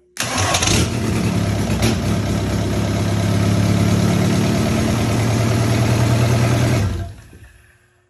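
Volkswagen 1.9 TDI ALH four-cylinder diesel engine, running on a bare stand-alone wiring harness, starting almost at once and running steadily for about six seconds, then shutting off and winding down near the end.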